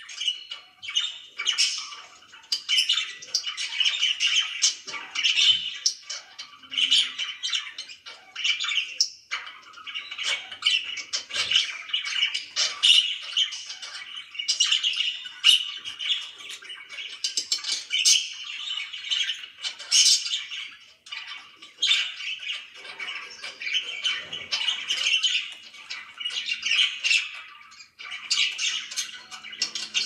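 Pet budgerigars chattering together without pause: a dense stream of short chirps and calls from several birds at once.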